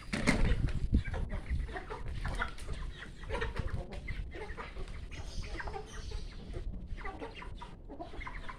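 A flock of young Shamo chickens clucking and calling in short, overlapping notes while they feed, with a couple of low bumps in the first second.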